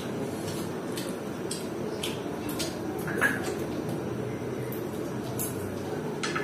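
Eating sounds of people eating with their hands: scattered wet mouth clicks and smacks as chicken is sucked off the bone and fingers are licked, the clearest about three seconds in, over a steady low background hum.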